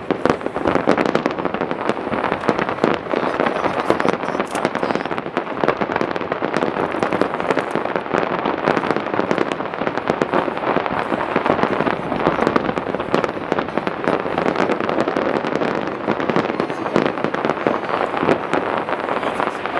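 Fireworks firing continuously: a dense, unbroken crackle of many small rapid reports at a steady level.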